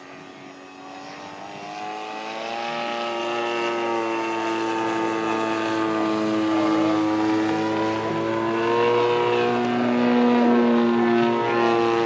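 Radio-controlled scale Wright Flyer model's engine and propellers droning in flight, the pitch drifting slightly as it passes. It grows steadily louder over the first few seconds as the model comes closer, then cuts off suddenly at the end.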